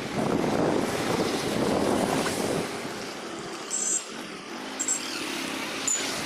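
Rushing floodwater of the swollen Subarnarekha River, with wind buffeting the microphone in surges.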